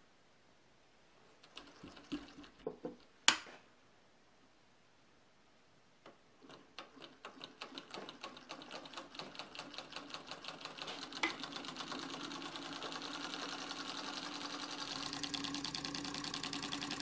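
Homemade solenoid engine with a wooden flywheel starting up. The solenoid snaps its iron plunger in on each stroke as cam-operated wire contacts switch it, and the clicks come faster and faster as the flywheel gains speed, until they blur into a steady rapid clatter. Before it starts, a few knocks and one sharp click.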